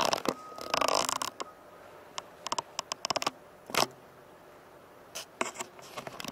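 Handling noise from a handheld Sony HDR-AS300 action camera: irregular scrapes, rustles and clicks as it is moved, loudest in the first second or so and then scattered.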